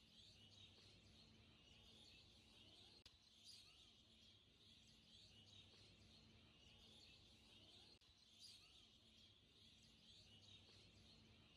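Near silence: faint background hiss with a low steady hum.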